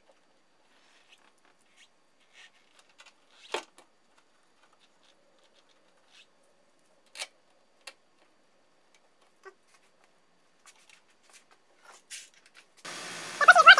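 Scattered light clicks and knocks of parts being handled while the new wiper transmission is fitted, with one sharper click about three and a half seconds in. Near the end the wiper motor switches on and runs, giving a steady hum with a whine that wavers in pitch, as the new linkage is tested.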